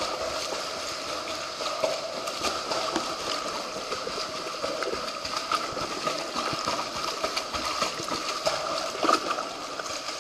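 Water splashing and churning as a dog paddles close by in a swimming pool, with a steady hum underneath.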